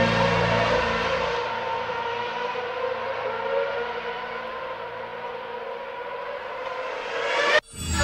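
Electronic music: sustained, siren-like synth drone tones, with the low bass dropping out about a second and a half in. The drone swells near the end, then cuts off abruptly, and the full track comes back in loudly.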